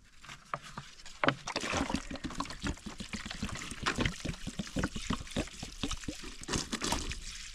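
Water being poured out onto plants and soil, splashing and trickling in quick irregular spatters.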